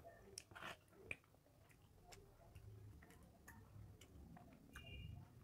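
Near silence with faint scattered clicks and soft taps of slow eating by hand: fingers mixing rice on a steel plate and quiet chewing.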